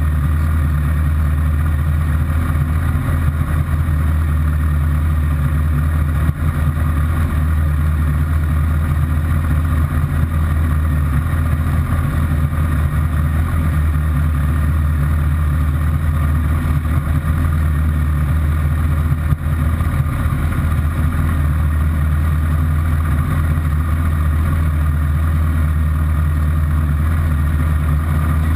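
Honda CBR1000RR's inline-four engine idling steadily, heard close up through a camera mounted on its fuel tank.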